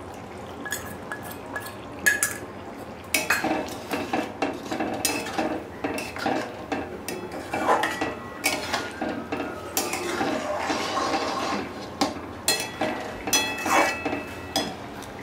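Steel spoon stirring thick chana dal in a metal wok (kadai), clinking and scraping against the sides of the pan as a flour slurry is stirred in. A few light clinks at first, then steady, busy stirring from about three seconds in.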